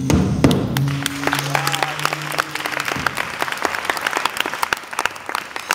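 Audience applauding as the band's last held note dies away during the first few seconds; the clapping gradually thins.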